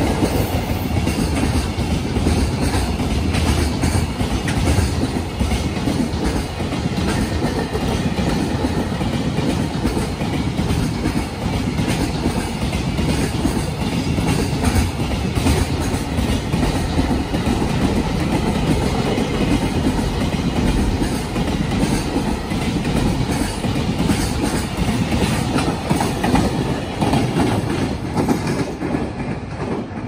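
Freight train's container wagons rolling past at speed, their wheels clattering in a steady rapid clickety-clack over the rail joints and turnouts. The sound eases a little near the end as the tail of the train moves away.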